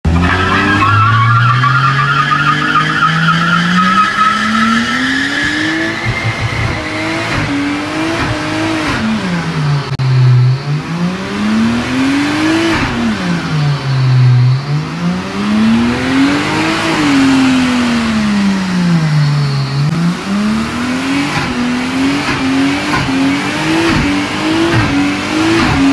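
Nissan Skyline R33 doing a skid, its rear tyres spinning and squealing on concrete. The engine revs climb steadily for the first few seconds, then drop and rise again several times, with quick short blips at high revs near the end.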